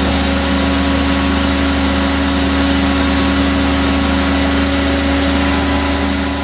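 Unlimited hydroplane's gas turbine engine running at a steady speed, a constant drone with a hiss on top.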